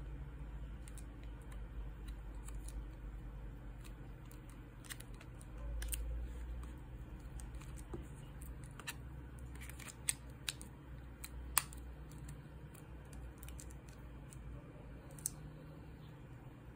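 Scattered light clicks and taps from a disassembled Oppo A3s smartphone being handled and turned over, with three sharper clicks about ten, eleven and a half and fifteen seconds in, over a low steady hum.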